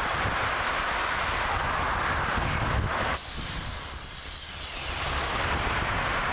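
Wind rushing over a helmet-mounted camera's microphone while cycling in traffic: a steady rushing noise that turns into a higher, thinner hiss about halfway through.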